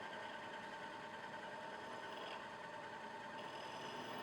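Milling machine running steadily with its drill bit turning, a faint, even motor hum with a steady whine.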